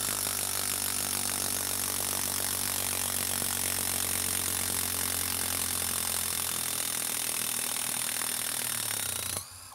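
Bosch 12-volt impact driver hammering steadily as it backs a long timber screw out of a wood stump. It stops abruptly near the end.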